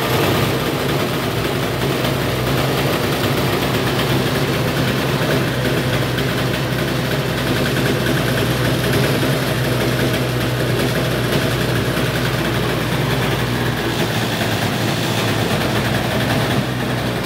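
IAME Leopard 125cc two-stroke kart engine idling steadily.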